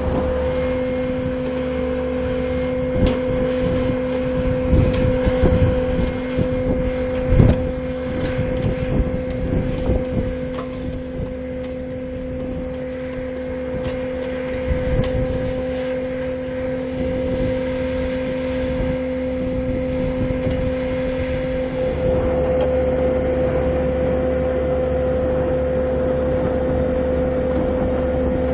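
Heavy machinery running: a steady engine hum with a held whine, and irregular knocks and rattles in the first third.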